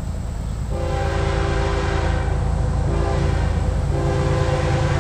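Diesel freight locomotive's air horn sounding a chord: a long blast about a second in, a short one, then another long blast still going at the end, over a steady low rumble.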